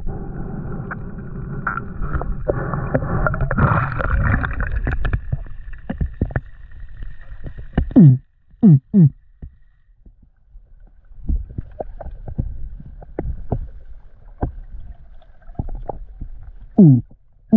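Underwater sound through a camera housing: dense, muffled water rumble and gurgling for the first half. Then scattered clicks and short, loud bloops that drop in pitch, coming three at a time twice, about nine seconds apart.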